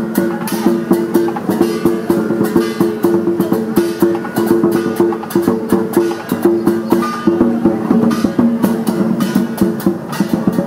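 Background music: plucked guitar-like notes over a steady beat.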